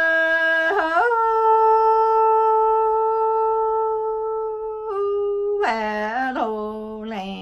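A woman singing Hmong lug txaj, chanted sung poetry, in long held notes. About a second in, a sustained note steps up and is held for several seconds. Near the end the voice drops lower into a wavering, ornamented phrase.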